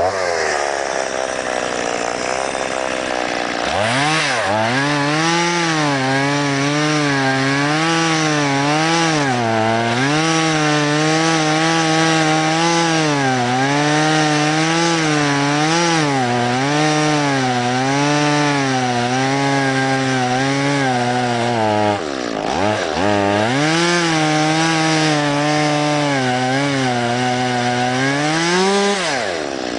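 Stihl MS 170 two-stroke chainsaw cutting wood. The engine runs lower for the first few seconds, then climbs to high revs about four seconds in, its pitch wavering up and down under load. The revs dip briefly about two-thirds of the way through, pick up again, and fall away at the end.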